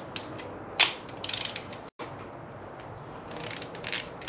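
Click-type torque wrench ratcheting in short strokes as engine main cap bolts are run down to 15 ft-lb, the first step of a two-step torque sequence. A single sharp click stands out about a second in.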